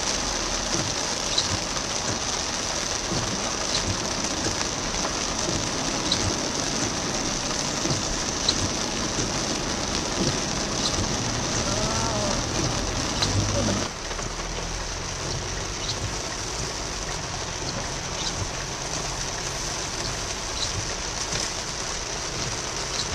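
Heavy rain pelting a car's roof and windshield, heard from inside the car, with a faint tick about every two and a half seconds. A little past halfway the rain sound drops suddenly to a slightly quieter level.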